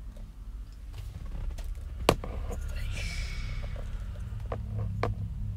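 Handling noises: a sharp click about two seconds in, a brief rustle, and a few softer knocks near the end, over a steady low rumble.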